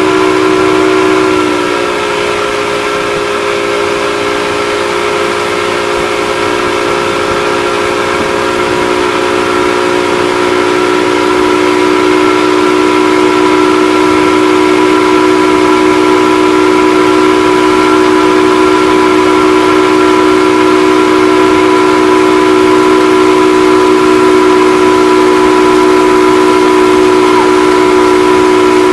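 Towing motorboat's engine running steadily at speed, a constant pitched drone. It drops slightly in pitch about a second and a half in, then grows louder again.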